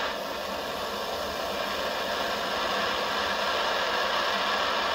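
Gas blowtorch on a screw-on canister burning with a steady hiss, its flame heating a bolt held in locking pliers until the bolt turns black.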